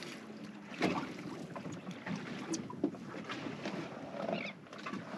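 Wind buffeting the microphone and water slapping a small fishing boat's hull, with a few sharp knocks.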